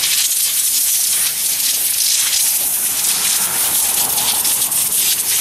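Propane wand torch hissing steadily as its flame is played over the carved letters of a wooden sign, charring the wood.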